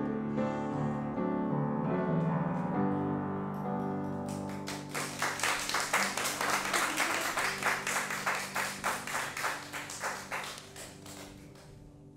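A piano accompaniment closes a song with held, ringing chords. From about four and a half seconds in, a small group of people claps rapidly over it, and the clapping fades away near the end.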